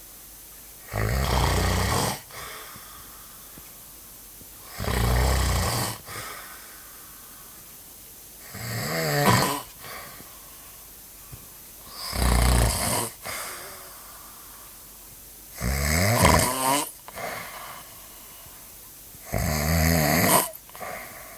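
Loud snoring: six long snores, about one every three and a half to four seconds, some with a fluttering rattle.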